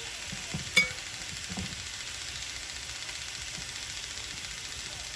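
Marinated steak sizzling steadily on a hot cast-iron grill pan, with one sharp click a little under a second in and a couple of softer knocks around it.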